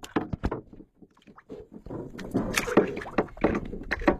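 Irregular knocks and clatter, with brief rustling in the middle, like gear being handled.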